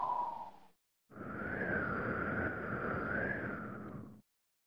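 Intro sound effects: a short sound with a steady tone that fades out just under a second in, then after a brief gap about three seconds of airy noise with a wavering whistle in it, fading away near the end.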